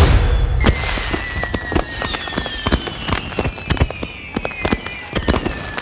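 Fireworks crackling: many sharp pops at uneven intervals, with a couple of long whistles that slowly fall in pitch, the whole gradually fading.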